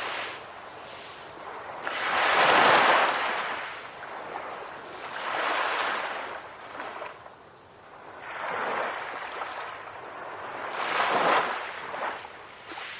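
Ocean waves washing onto a beach, swelling and falling back four times, about every three seconds, the loudest about two seconds in.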